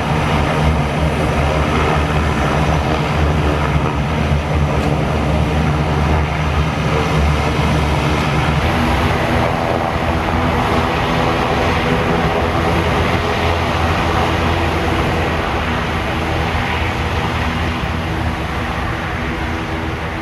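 Antonov An-24RV's Ivchenko AI-24A turboprop engines running on the ground with a steady low hum. About nine seconds in the hum gives way to a broader, rougher rush of propeller and engine noise.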